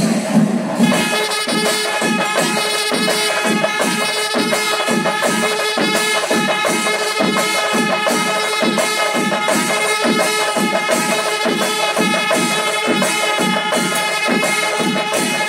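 Kerala chenda melam: a mass of chenda drums beating a fast, even rhythm, with ilathalam hand cymbals, joined about a second in by kombu horns holding a long steady note.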